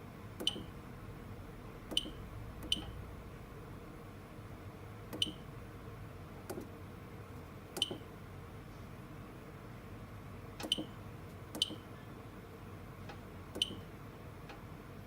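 Key presses on an addressable fire alarm control panel's keypad, each a short click with a brief high beep, about nine at irregular intervals of one to three seconds.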